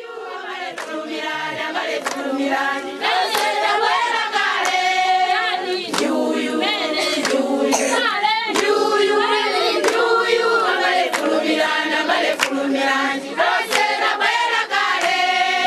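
A crowd of Malawian villagers singing together as a choir, many voices at once, with sharp hand claps scattered through the song.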